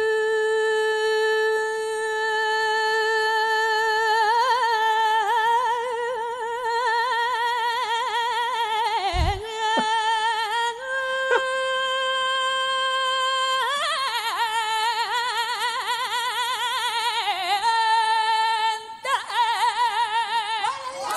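Female copla singer holding long, full-voiced sung notes: a steady note first, then wide vibrato, a brief break about nine seconds in, and more long held notes with vibrato.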